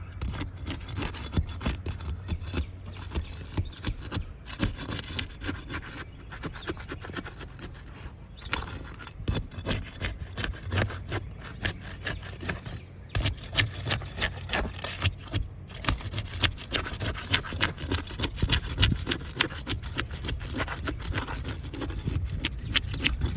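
Roof repair work by hand: an irregular run of scraping and rubbing strokes with small knocks, over a steady low hum.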